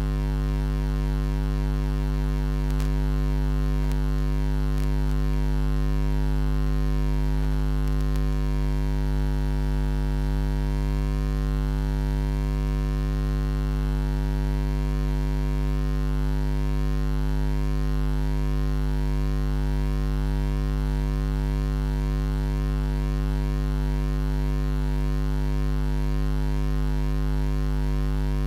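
Steady electrical mains hum, a low buzz that does not change.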